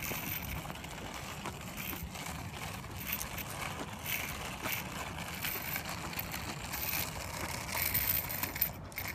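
Hard skateboard wheels rolling over coarse asphalt: a steady low rumble with scattered small clicks and rattles.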